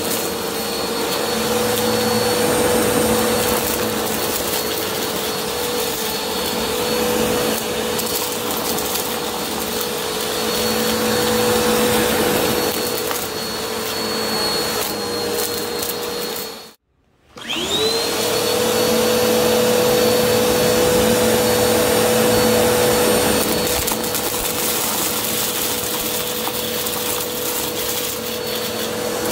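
Bissell upright vacuum cleaner running steadily with a high motor whine while sucking up shredded paper and corn kernels from carpet. A little past the middle the sound cuts out abruptly for about half a second, then the motor spins back up with a rising whine.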